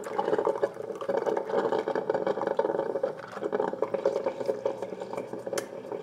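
Mixpresso single-cup coffee maker's brewing noise: a steady bubbling gurgle as hot water is pushed through at the end of its brew cycle, easing briefly about three seconds in.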